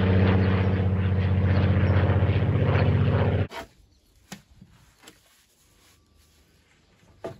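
A motor runs loud and steady with a low, even hum, then cuts off suddenly about three and a half seconds in. A few light knocks follow.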